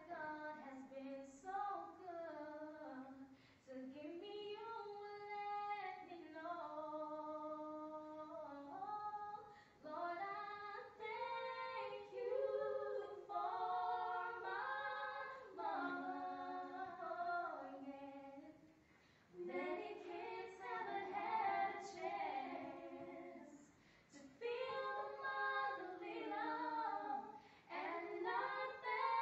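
Girls singing a song unaccompanied, in long held phrases with short breaks between them.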